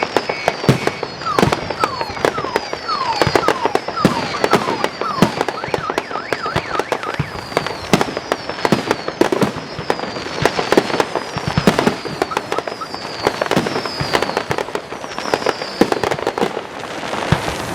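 Fireworks salute going off: a rapid, continuous barrage of sharp bangs and crackling explosions, with many short falling whistles among them.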